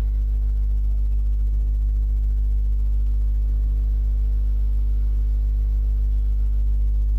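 Steady low electrical mains hum with a string of evenly spaced overtones, unchanging throughout.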